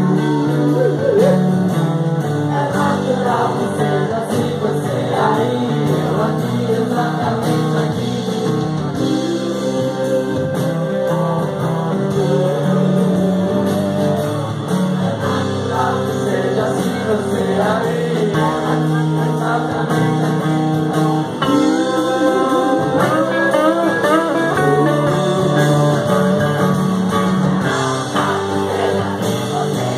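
A live band playing a song, guitar to the fore over a steady bass, heard loud and continuous from within the audience.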